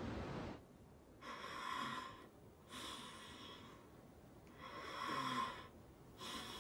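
A steady rushing noise cuts off about half a second in. Then a person snores slowly, two long breaths in and out, each breath lasting about a second.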